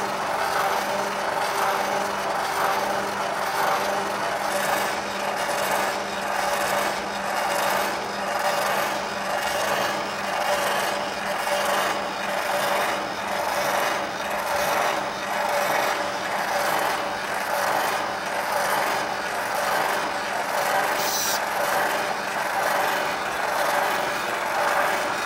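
Stepper and servo motors and 3D-printed parts of a motorised light machine running: a steady mechanical whir with a few held tones and a rasping, rubbing sound that pulses evenly about three times every two seconds.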